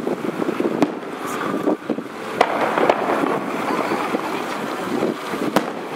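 Wind buffeting the microphone over a steady rumble of city traffic, with a few sharp distant firework bangs about a second in, midway and near the end.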